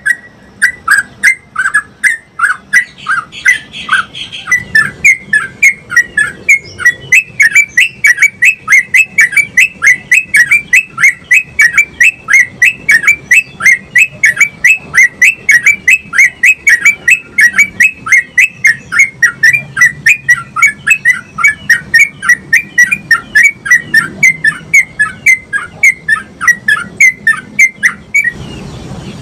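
Yellow-vented bulbul (trucukan) singing a long rolling 'ropel' run: a fast, unbroken string of short, loud repeated notes that stops abruptly near the end. This is the long rolling song kept as training audio for other trucukan birds.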